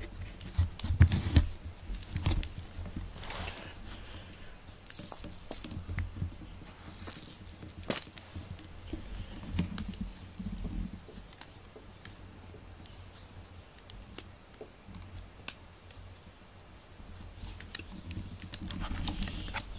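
A small metal bell jingling in a few short rings, among scattered light clicks and soft rustling of a plastic bag.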